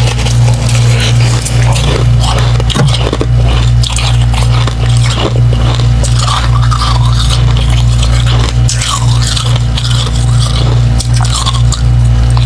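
Close-up biting and chewing of soft slushy ice chunks: refrozen humidifier frost dipped in water, giving irregular wet, crackly crunches. Under it runs a steady low hum.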